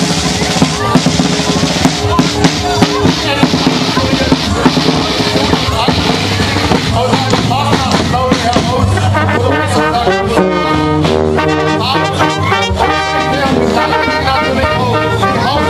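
Carnival marching brass band (Guggenmusik) playing loudly: sousaphone, trumpets and saxophones over a drumbeat.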